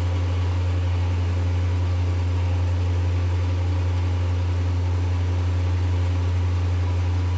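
A steady low hum with an even faint hiss over it, unchanging throughout.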